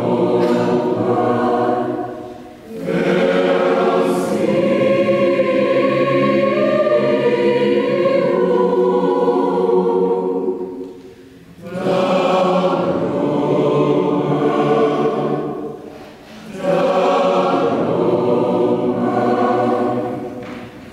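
Mixed choir singing in long held phrases, with brief breaks between phrases three times; the last phrase dies away at the end.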